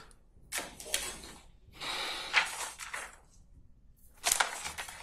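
A man sighing and blowing out his breath three times in a row, each breath lasting about half a second to a second.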